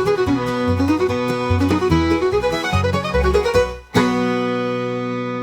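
Country-bluegrass instrumental music: plucked strings picking a melody over a pulsing bass line, breaking off about four seconds in into a final held chord that rings on.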